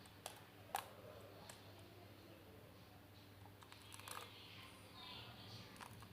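A few small, sharp clicks of eggshell against a bowl as an egg yolk is separated from the white, the loudest about a second in, over near silence and a faint low hum.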